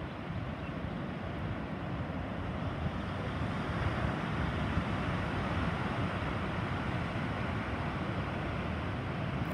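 Steady rushing noise of wind on the microphone and the roar of distant heavy surf.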